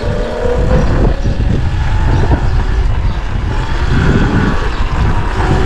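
Wind rumbling over the microphone while riding an electric dirt bike, a 2023 Surron Light Bee X, with a faint steady whine from the electric drive under the rush.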